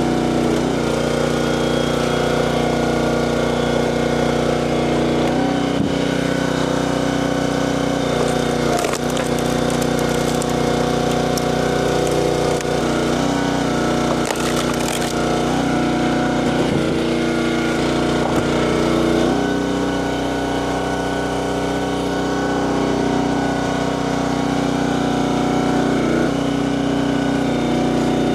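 Firewood being split: wood cracking and splintering several times over a steady motor drone whose pitch shifts every few seconds.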